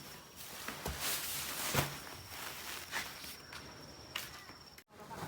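Faint outdoor ambience: a few soft footsteps or knocks, roughly one a second, over a steady high insect tone. The sound cuts off abruptly near the end.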